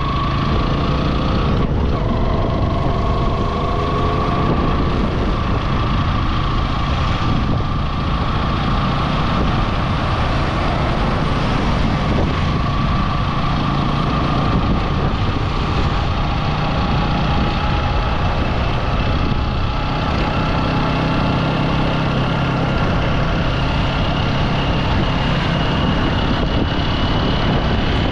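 A vehicle engine running steadily under a constant rush of road and wind noise, with a faint whine that slowly drifts in pitch.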